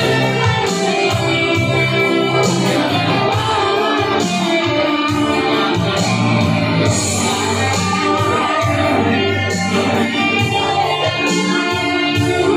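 A man singing karaoke into a microphone over a backing track with guitar.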